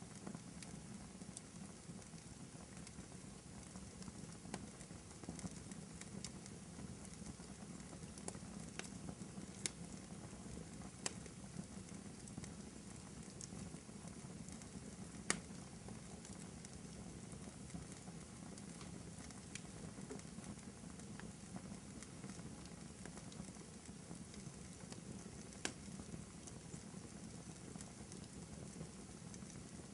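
Wood fire burning in a fireplace: a steady low hiss and rumble with scattered sharp crackles and pops, the loudest pop about halfway through.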